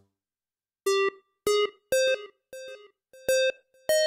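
A synthesizer loop from Steinberg's VST Sounds & Loops Urban set starts about a second in. It plays short, clean pitched stabs, roughly two a second, in a melody that steps upward.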